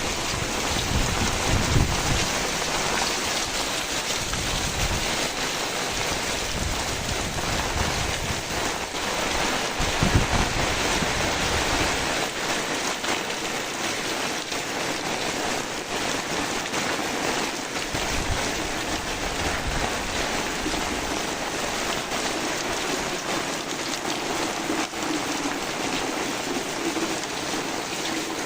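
Heavy rain falling steadily, with gusts of wind buffeting the microphone now and then.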